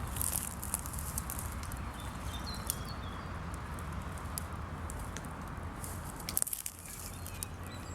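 Outdoor riverside ambience: a steady rushing background with a low hum, scattered small clicks and rustles, and a few faint bird chirps.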